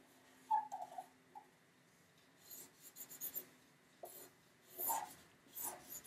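Sharpie marker drawing on paper: a series of faint, short, scratchy strokes, most of them in the second half.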